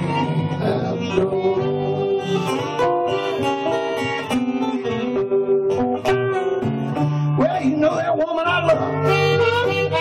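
Blues harmonica played cupped against a handheld microphone, with held notes and chords and a note bent upward about seven seconds in.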